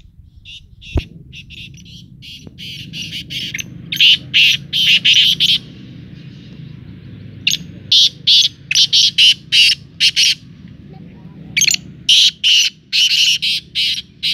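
Caged black francolins calling: harsh, loud, high-pitched call phrases repeated in several runs of a second or two each, with short gaps between the runs, over a low steady background rumble.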